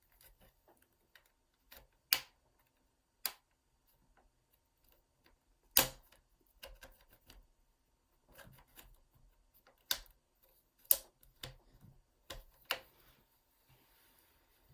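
Sharp plastic clicks and snaps, about half a dozen loud ones among smaller ticks, as the laptop casing's plastic clips are pried loose with a pick.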